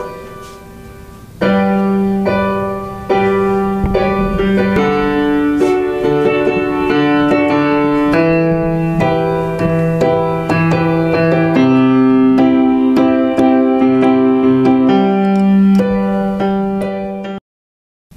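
Keyboard music: held piano-like chords that change every second or so, cutting off abruptly near the end.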